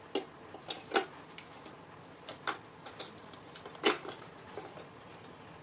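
Hard plastic toy kitchen pieces clicking and knocking as they are handled and fitted together. There are a few separate clicks, the loudest about a second in and again just before four seconds.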